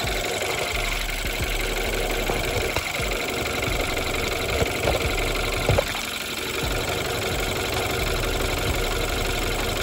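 BMW N20 2.0-litre turbocharged four-cylinder engine idling with a steady clatter, typical of this engine, which is noisy and gets louder with use. A few sharper clicks come a little past the middle.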